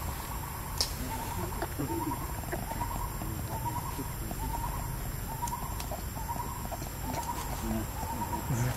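A bird in the forest calling one short note at a steady pitch over and over, a little faster than once a second, over a low background hum of the forest.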